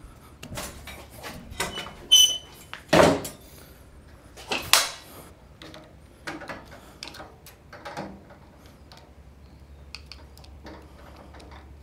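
Metal clanks and knocks from a 1954 Shopsmith Mark V being swung down from its upright drill-press position to horizontal and then worked on at the headstock. A ringing clank comes about two seconds in, a heavy thump a second later and another knock near five seconds, then lighter clicks and rattles.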